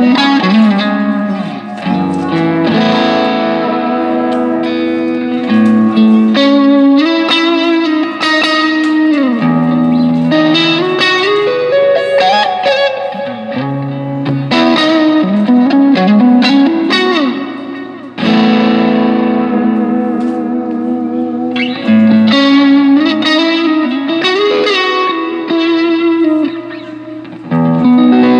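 Squier Vintage Modified Stratocaster electric guitar played through a Zoom G3X multi-effects pedal with reverb: strummed chords and picked single notes, with string bends that slide the pitch up and down a few times and short breaks between phrases.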